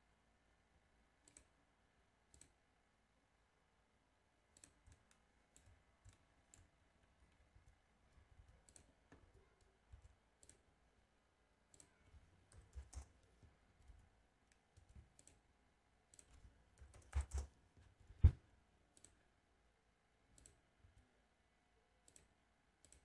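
Faint, irregular computer mouse clicks and keyboard keystrokes. Two or three louder knocks with a dull thud come about three-quarters of the way through.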